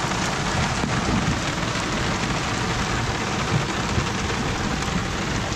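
Heavy rain pelting a small boat's canopy and windscreen: a steady, dense hiss with an uneven low rumble beneath it.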